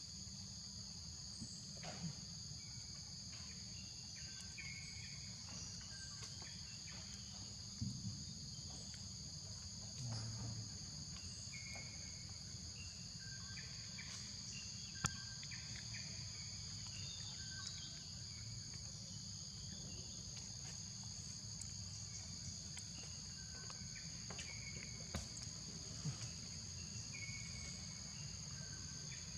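Steady high-pitched drone of insects, two even tones held without a break, with short chirps scattered through it and a few brief clicks.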